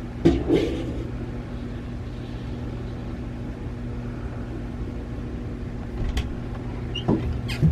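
A steady low machine hum, with a few short knocks and clicks, two about half a second in and a couple more in the last second and a half.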